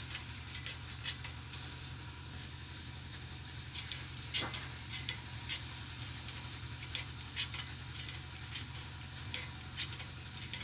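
Steady low drone of a running motor, with irregular sharp metallic clinks and ticks over it.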